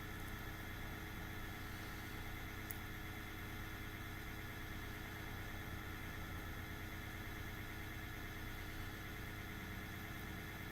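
Laptop cooling fan running with a steady whir and several steady tones, a fan the owner says is having issues.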